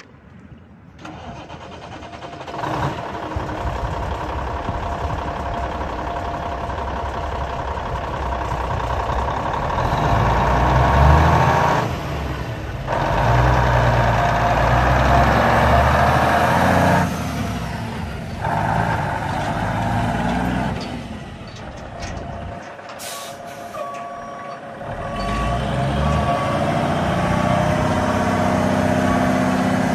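Peterbilt 379 dump truck's Cummins N14 six-cylinder diesel running, coming up in the first few seconds and pulling harder in the middle. A reversing alarm beeps repeatedly near the end.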